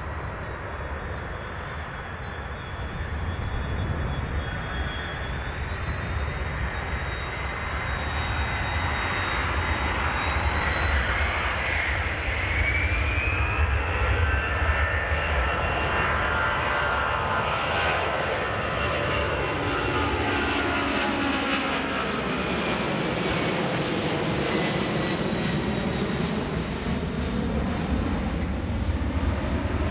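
KC-10 Extender tanker's three General Electric CF6 turbofan engines on a low flyby: a steady jet noise with a high whine that grows louder and rises in pitch as the aircraft nears, then a sweeping, phasing rush as it passes overhead and heads away.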